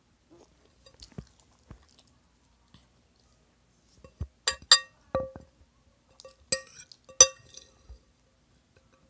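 A utensil clinking against a glass or ceramic dish: a few faint soft knocks at first, then about five sharp clinks with a short ringing tone, from about four seconds in.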